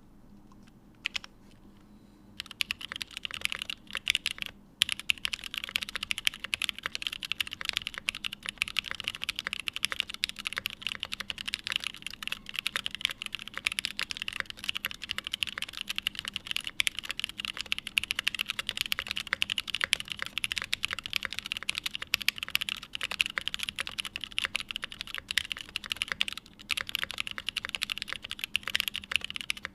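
Fast, continuous typing on a Day Off 60 mechanical keyboard with lubed and filmed Hyperglide switches on Kailh stems, in an aluminium plate, with GMK Modo keycaps. A single key click about a second in, then steady rapid key strokes from about two and a half seconds in, with one brief pause shortly after.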